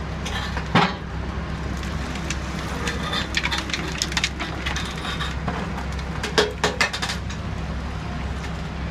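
Hydraulic cutting shear crushing a concrete bridge pier: scattered sharp cracks and crunches of breaking concrete, the loudest about a second in and at about six and a half seconds, over a steady low engine drone.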